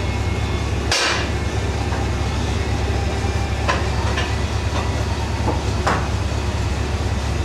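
A 2010 Camaro SS's 6.2-litre V8 idling steadily through ARH long-tube headers and a full aftermarket exhaust, a deep low rumble. A sharp click or knock comes about a second in, and a few fainter clicks follow between about four and six seconds in.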